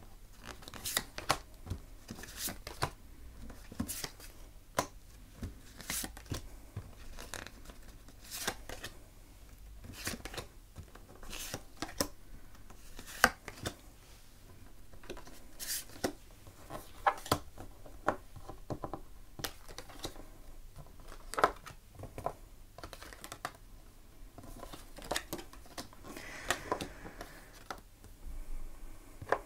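Oracle cards being dealt one by one onto a tabletop: irregular light slaps and brief slides of card on the table, about one every second. Near the end there is softer brushing as cards are slid and turned over.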